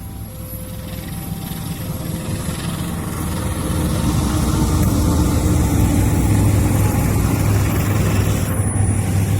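KAI CC206 diesel-electric locomotive drawing near with a passenger train. Its engine hum and running noise grow steadily louder over the first four seconds, then stay loud.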